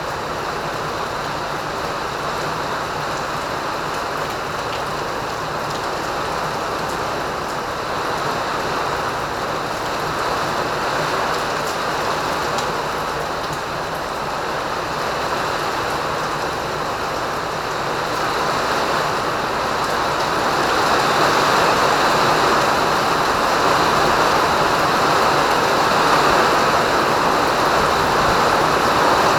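Rain pouring down in a steady hiss, growing louder about two-thirds of the way through.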